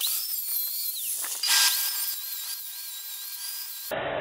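A power tool cutting steel railroad rail: a high-pitched motor whine that wavers in pitch, sags about a second in and climbs back, with a louder burst at about a second and a half.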